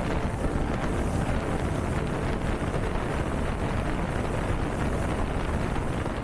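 Steady wind buffeting an action camera's microphone on an open fishing boat, a low, even rushing with no distinct events.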